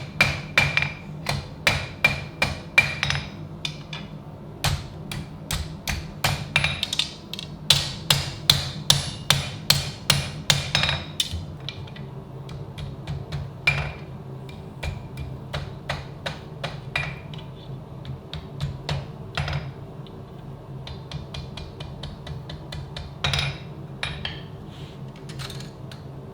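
Hand hammer striking steel, with a metallic ring after each blow: a quick run of strong blows, about two or three a second, then lighter, sparser taps from about halfway through. A steady low hum runs underneath.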